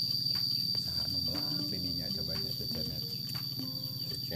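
Insect drone: one steady, high-pitched whine that holds without a break, the background noise an on-screen caption apologises for.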